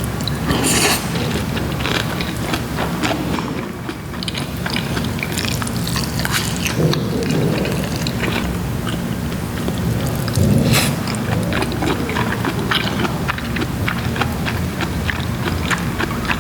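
A person chewing and biting gimbap close to the microphone: wet mouth sounds with many small irregular clicks, a few louder bites, over a steady low rumble.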